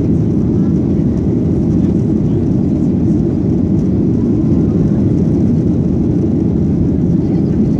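Steady low roar inside the cabin of a Boeing 737-800 in flight: engine and rushing-air noise heard through the cabin wall.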